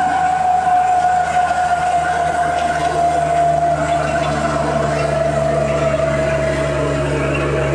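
A 1941 Chevrolet G7113 truck's straight-six petrol engine running on the road, heard from inside the cab, with road noise. A strong high whine runs over it and slowly drops in pitch.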